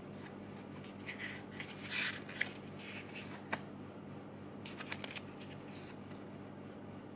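Hands handling a CD album's cardboard and paper packaging: short spurts of scraping and rustling, with a sharp tap about three and a half seconds in.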